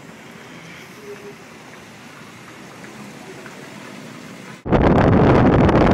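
Faint steady background noise, then about four and a half seconds in a sudden switch to loud wind buffeting the microphone of a camera riding in a moving UAZ jeep.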